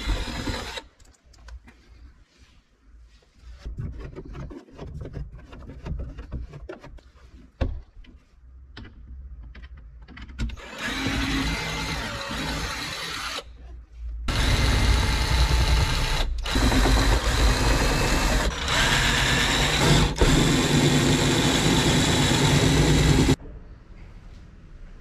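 Faint handling clicks and knocks, then a power drill running in five long bursts separated by brief pauses. The last burst stops abruptly near the end.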